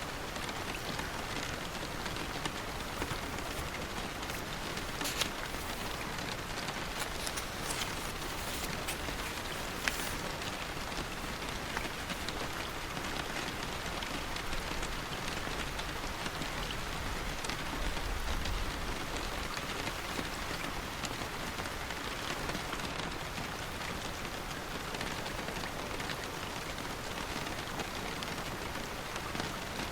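Steady rain falling on a surface, with scattered sharper drop ticks, several between about 5 and 10 seconds in, and a brief low rumble a little past the middle.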